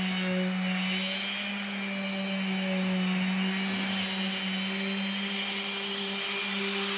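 Random orbital sander running steadily on a white oak tabletop: a constant hum with a hiss of the sanding pad on the wood.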